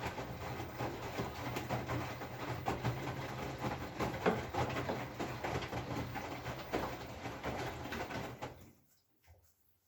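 Whirlpool FFB8469BVBE washing machine running with a steady low hum and a dense, irregular crackling rattle: the strange noise the owner is reporting. It fades away about eight and a half seconds in.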